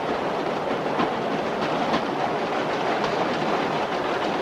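Subway car running on the rails: a steady rumbling rattle with occasional wheel clacks.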